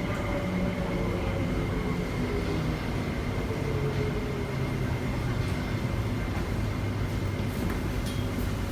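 An MTR SP1900 (IKK) electric train running, heard from inside the car. Its traction motor whine falls steadily in pitch as the train slows, over a constant rumble of wheels on rail.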